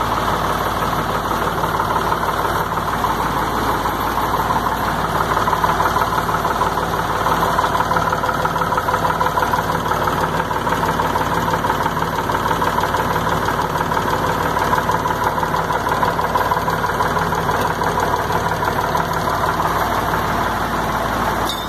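Truck engine running steadily, driving the piston water pump, which runs without its earlier noise now that its over-tightened packing seals have been loosened.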